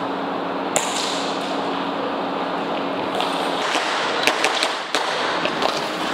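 Airsoft pistol shots and BB hits in an indoor arena: one sharp crack about a second in, then a quick string of sharp clicks and cracks from about four seconds in, over a steady rushing background noise.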